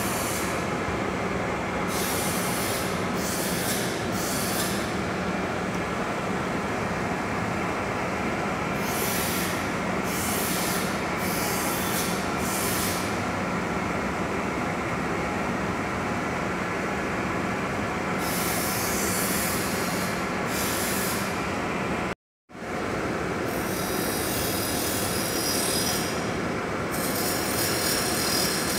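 Metal lathe running steadily while turning a small hose nipple, with a high scraping hiss from the cutting tool that comes and goes in stretches of a second or more. All sound drops out for a moment about two-thirds of the way through.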